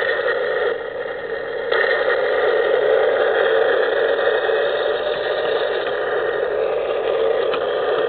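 Battery-operated Thunderbird 3 toy rocket playing its rocket-engine sound effect through its small built-in speaker: a steady electronic roar that steps up in loudness a little under two seconds in.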